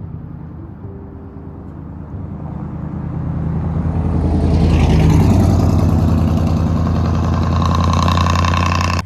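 Motor vehicle on a rural two-lane road: engine and tyre noise that swells over a few seconds, peaks about halfway through and stays loud.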